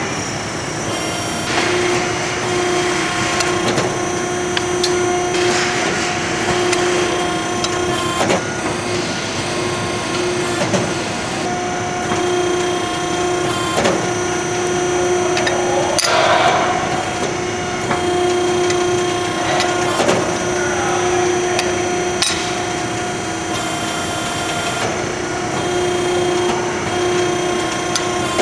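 Ironworker running with a steady hum, punching holes through steel plate with a sharp clack every couple of seconds.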